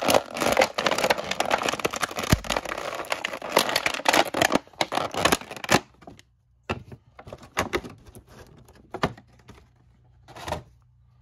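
Clear plastic packaging shell crinkling and crackling as an action figure is worked out of its moulded tray. The crackling is dense for about the first six seconds, then thins to scattered clicks and crackles.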